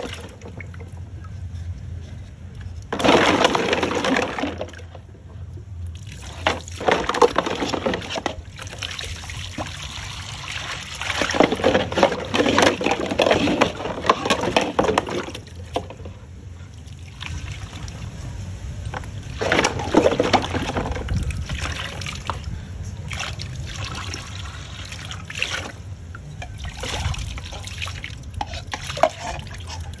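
Water splashing and sloshing in a basin as dried calabash ladles and bowls are scrubbed and rinsed by hand, coming in irregular bursts.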